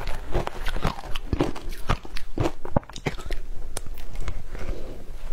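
Matcha-coated ice crunching as a spoon digs through it in a plastic tub and it is bitten and chewed: a fast, irregular run of crunches with a brief lull about three seconds in.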